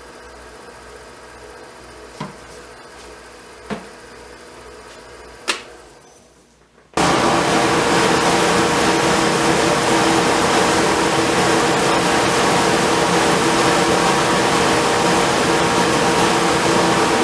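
A low hum with three sharp clicks, then, about seven seconds in, a workshop machine's motor comes on abruptly and runs loud and steady with a constant hum.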